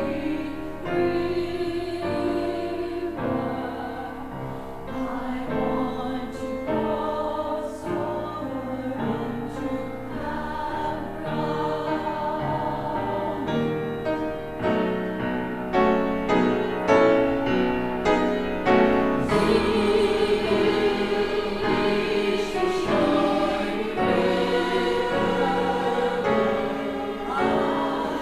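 Church choir singing an anthem, many voices holding sustained notes over instrumental accompaniment.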